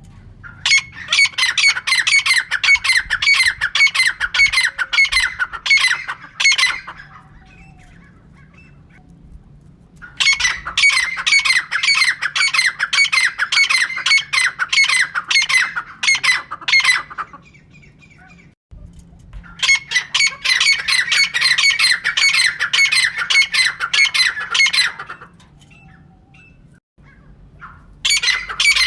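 Female francolin (teetar) calling: rapid runs of repeated, evenly spaced call notes in bouts of about six seconds, with a pause of two to three seconds between bouts, four bouts in all.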